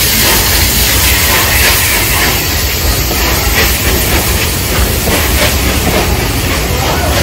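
Steam locomotive 34067 Tangmere, a rebuilt Bulleid Battle of Britain class Pacific, pulling away with its train: a loud, steady hiss of steam from around the cylinders, with the coaches' wheels clicking over the rail joints as they roll past from about three seconds in.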